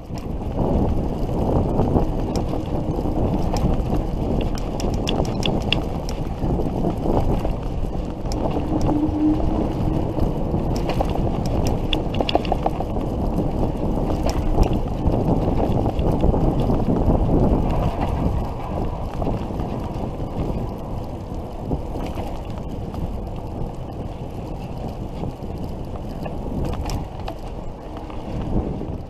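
Wind rushing over the microphone and tyres rolling while riding an electric bicycle, a steady low rumble with a few light clicks and rattles.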